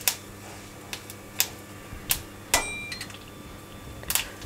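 Black mustard seeds frying in hot mustard oil in a metal kadai: a faint sizzle broken by about six sharp, scattered pops and clicks, one near the middle ringing briefly like metal on the pan, over a low steady hum.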